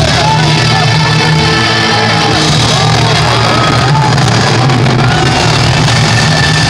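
Loud music played over an arena's speakers, with a crowd shouting and cheering over it.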